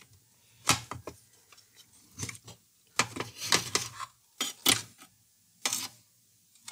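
Sharp plastic clicks, knocks and short rattles as a turntable's black plastic platter and tone arm mechanism is worked loose and lifted out of its base, scattered through with quiet gaps between.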